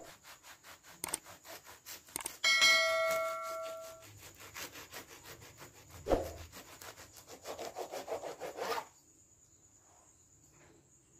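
Bread knife sawing through a toasted club sandwich on a cutting board: quick rasping strokes, several a second, stopping about nine seconds in. About two and a half seconds in, a metallic ring sounds for a second or so, and a dull knock comes about six seconds in.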